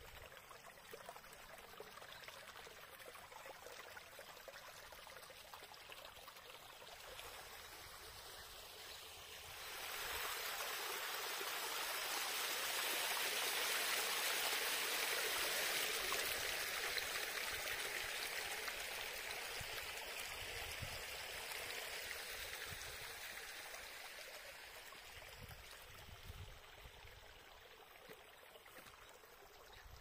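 Shallow stream running over rocks: a steady trickle that swells to a louder rush about ten seconds in, where the water spills over low rock steps, then slowly fades back to a gentle trickle.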